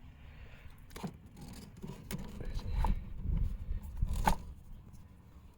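A few sharp clicks and scrapes of tools and parts being handled while working in a Ford Focus engine's spark plug wells, which are flooded with oil, with low handling noise underneath.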